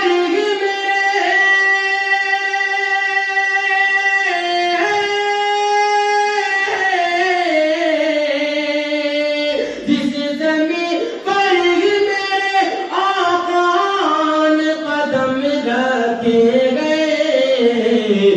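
A man singing a naat solo, holding two long notes and then moving into gliding, ornamented runs.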